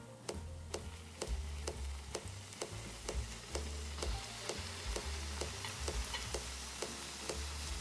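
Butter sizzling in a cast-iron skillet as banana slices are laid in to fry, the sizzle growing louder as the pan fills. Background music with a steady beat plays throughout.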